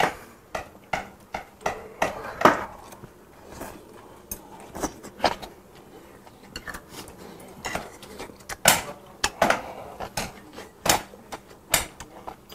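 Eating at the table: repeated short puffs of blowing on hot shabu-shabu food, mixed with light clicks and clinks of chopsticks against the plate and pot.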